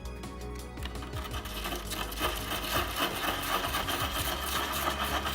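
Hand sanding pad rubbed in circles over a cured epoxy resin ding repair on a surfboard rail, a steady fast scratching that builds up about a second in.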